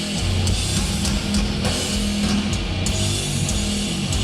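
Doom metal band playing live: slow, long-held distorted guitar and bass chords with cymbal hits.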